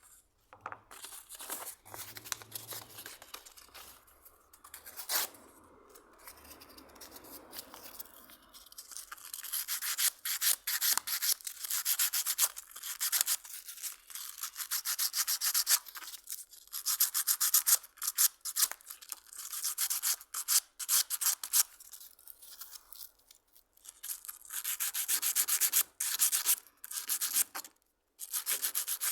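Hand sanding with sandpaper, in quick back-and-forth strokes. Softer at first, then louder, faster runs of strokes broken by short pauses.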